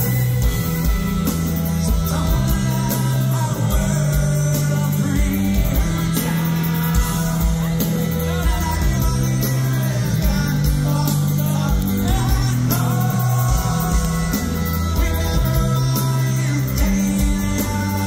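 Live rock band playing through a big concert PA, with a lead singer, a bass line stepping between held notes and steady drums and cymbals, heard from within the crowd.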